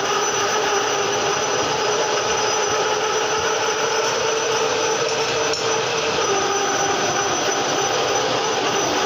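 Metal lathe running steadily under a machining cut, a dense mechanical noise with several steady whining tones held throughout.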